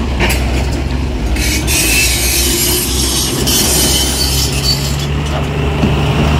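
Tata tipper truck's diesel engine running low and steady as the truck creeps into position, with a loud hissing squeal about a second and a half in that lasts about two seconds; the engine note shifts slightly after about four and a half seconds.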